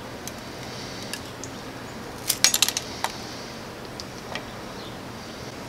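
Small hard objects being handled on a work surface: a quick cluster of sharp clicks and taps a little over two seconds in, with a few single ticks before and after.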